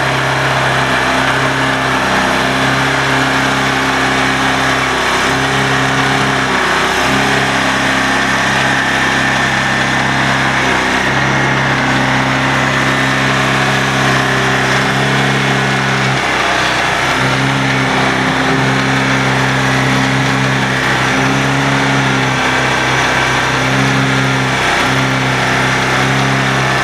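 Engine of a Morbark G42 SP self-propelled stump grinder running steadily, its low hum briefly wavering every few seconds.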